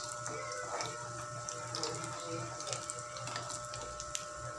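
Hot oil sizzling under a potato omelette frying in a pan, a steady hiss with scattered crackling pops, as oil is spooned over the omelette's top to cook it.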